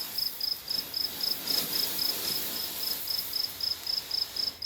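A cricket chirping steadily, a high-pitched pulse repeating about three or four times a second.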